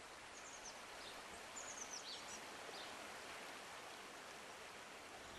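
Quiet woodland ambience: a steady faint hiss with a few short, high, falling bird chirps, a quick run of them about two seconds in.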